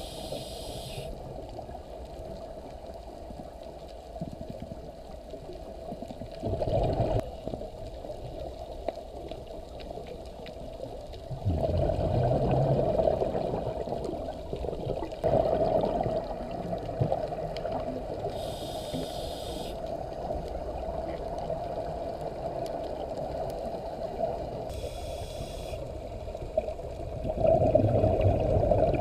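Underwater sound of scuba diving: a diver's regulator, with bubbling exhalations swelling up every few seconds and a couple of short hissing inhalations, over a steady hum.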